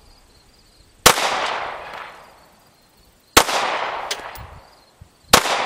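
Glock 19 9mm pistol fired three times in slow, aimed fire, about two seconds apart, each shot trailing off in a long echo.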